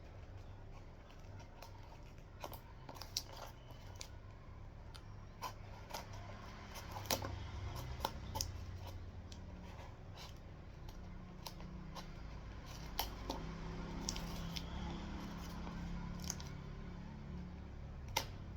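Packaging being handled and opened by hand: irregular sharp clicks and crinkles of cardboard and plastic over a low steady background hum.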